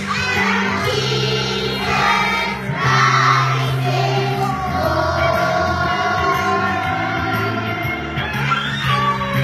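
A group of young children singing a Christmas song together over instrumental accompaniment with steady held bass notes.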